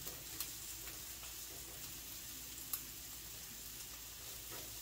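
Sliced carrots sizzling in a bubbling honey and cane sugar glaze in a skillet, stirred with a silicone spatula, with a few light clicks.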